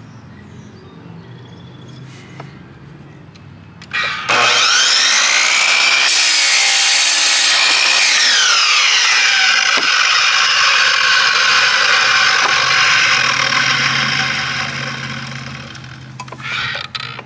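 Old electric miter saw: its motor spins up with a rising whine about four seconds in and the blade cuts through a pine board. After the trigger is released the blade winds down with a long falling whine. A few knocks follow near the end.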